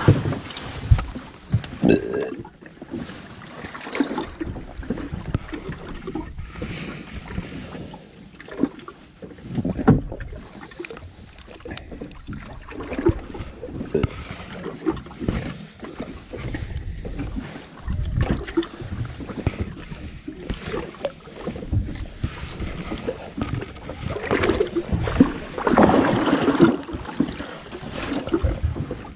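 Wind buffeting the microphone over water lapping and slapping against a small boat's hull, with scattered knocks and bumps on the boat. A louder rush comes near the end.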